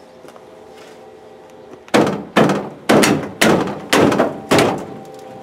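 Six hard thuds, about two a second, starting about two seconds in: a bed rail on a Ford F250 pickup being pounded down into place by hand.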